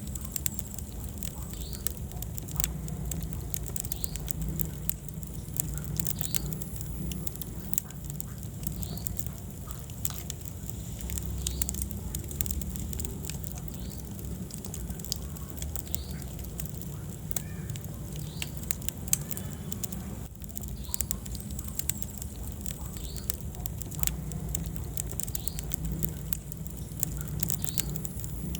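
Wood fire burning in a fireplace: frequent sharp crackles and pops over a steady low rumble of the flames.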